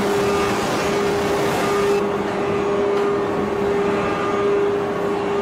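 Steady drone of heavy forging-press machinery with a constant mid-pitched whine running through it, and no hammer blows.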